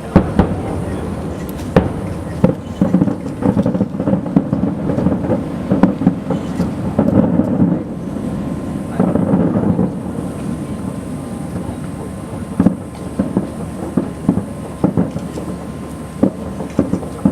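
Distant fireworks finale: aerial shells bursting in rapid, irregular succession, the sharp bangs overlapping into a continuous rolling rumble like thunder.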